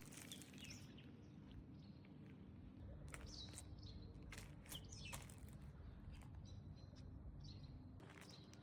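A few faint, short, high bird chirps over a low steady background rumble, with scattered light clicks.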